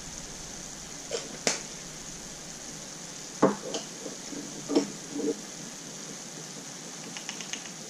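Steady low sizzle of chicken and vegetables cooking in a stainless steel pan, with a few knocks and clicks of kitchen things being handled, the loudest about three and a half seconds in and a run of small ticks near the end.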